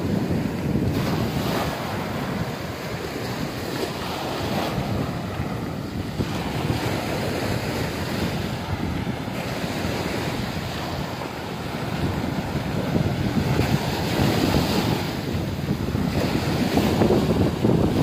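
Small sea waves breaking and washing up a sandy beach, the surf swelling and easing every few seconds, with wind rumbling on the microphone.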